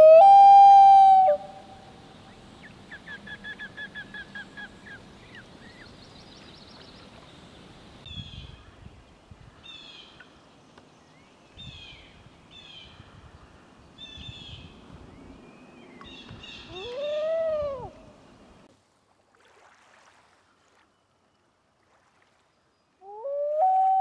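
Common loon giving long wailing calls: a loud note that rises and then holds at the start, a second arched note about two-thirds of the way through, and a third beginning near the end. Between them, small birds chirp faintly in the background, and it falls nearly silent for a few seconds before the last call.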